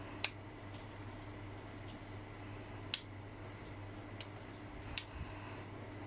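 Victorinox Swiss Army knife tools snapping into place as they are opened and folded, three sharp clicks a couple of seconds apart.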